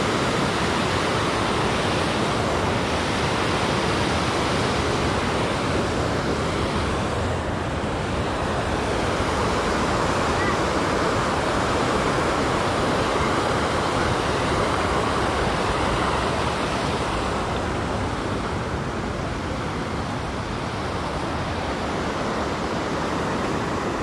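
Waterfall and river rapids rushing steadily, a continuous even wash of water noise.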